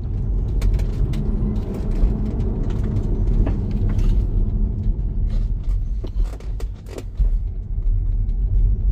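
Irregular sharp knocks, many in a row, over the steady road rumble of a Tesla driving forward, loudly. The knocking comes from a brake pad that has come unglued and rattles up against the brake caliper.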